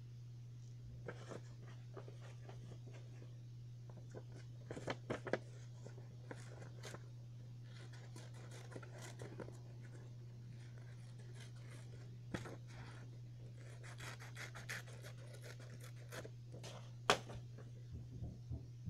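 Scissors snipping thin yellow paper in short, irregular cuts, with light paper rustling, faint over a steady low hum.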